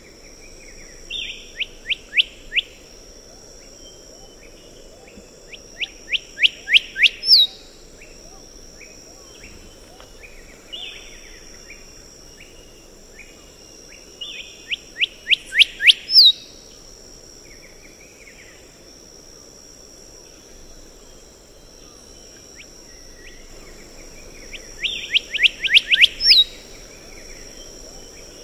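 Black-headed whistler singing: four phrases of quick repeated whistled notes that speed up, three of them ending in a loud, sharp upswept 'wik'.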